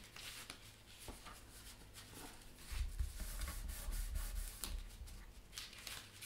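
Sheets of thin card rustling and rubbing as they are folded shut and pressed down by hand, with scattered faint clicks and some soft low thuds in the middle.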